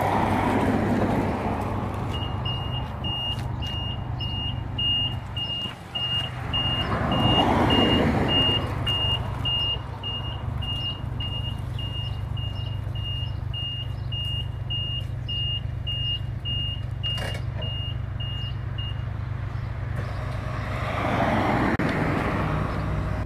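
Cityfort electric utility vehicle manoeuvring, its reversing beeper sounding a high single-pitch beep about twice a second from about two seconds in until shortly before the end. Under it runs a steady low hum, with louder rushing swells three times as the vehicle moves close by.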